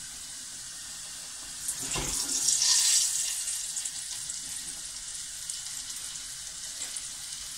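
Potatoes frying in hot sunflower oil, a steady sizzling hiss. About two seconds in there is a knock and the sizzle flares up loudly for a second or two as lemon peel goes into the hot oil, then it eases back to a steady sizzle.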